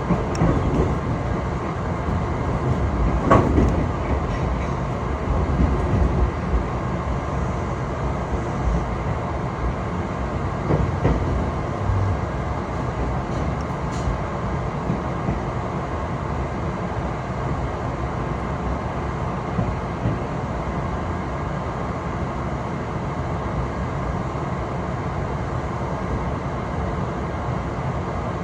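A train running along the rails, heard from inside the carriage: a steady rumble with a few louder knocks from the wheels, about three and eleven seconds in.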